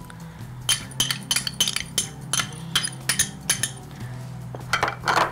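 A spoon clinking and tapping against a glass baking dish of mashed potato filling: a dozen or so short, sharp clinks at irregular intervals.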